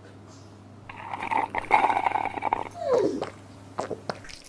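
Drink being sucked up through a plastic straw with a rough, bubbly slurping noise for a second or two, followed by a brief sound that falls in pitch, like a swallow.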